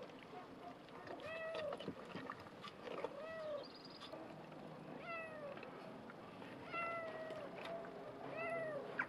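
A domestic cat meowing repeatedly, short rising-and-falling calls about every second and a half.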